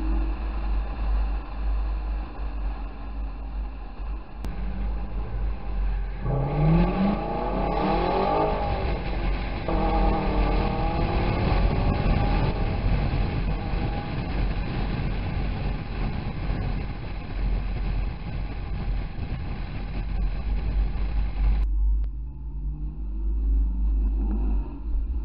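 Chevrolet Camaro driving: engine running under steady road and wind rumble, accelerating with a rising pitch about a quarter of the way in. The sound changes abruptly a few times where the footage is cut.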